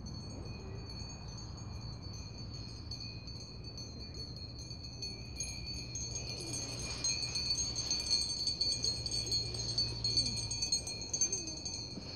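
Small metal bells ringing steadily with several high, clear tones, jangling more busily and louder from about halfway through as the sheep flock moves.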